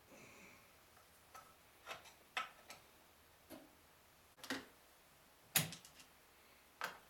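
Irregular small metallic clicks and taps from hands and a screwdriver working on the needle-bar mechanism of a Chaika-134A sewing machine, about eight in all, the loudest a little past halfway.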